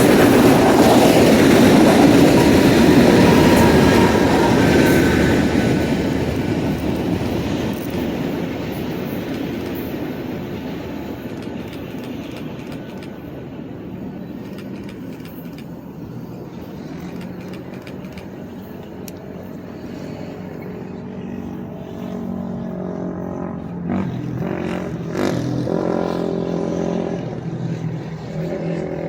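BNSF freight train's cars rolling past, loud at first and fading away over about ten seconds as the train moves off. Later a road vehicle's engine hum comes in and grows, with a couple of knocks.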